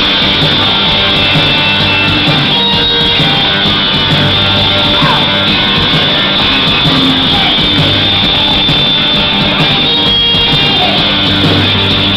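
Live rock band playing loud through a PA, with electric guitars, bass guitar and drums.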